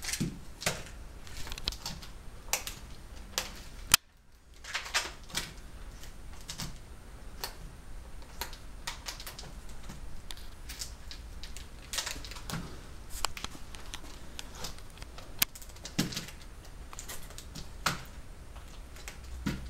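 A rabbit gnawing and tugging at a brown scrap, giving irregular crisp clicks and crunches, with one sharper click about four seconds in.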